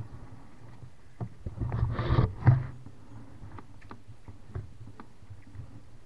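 Mountain bike rattling down a rough singletrail: scattered knocks and clatter, with a louder rough burst about two seconds in that ends in a hard knock.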